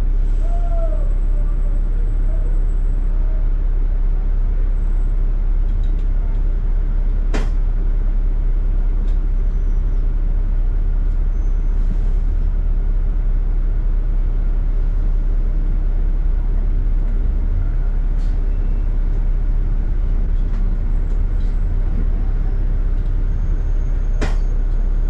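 Double-decker bus heard from on board: the steady low rumble of the bus running, with two sharp clicks, one about seven seconds in and one near the end.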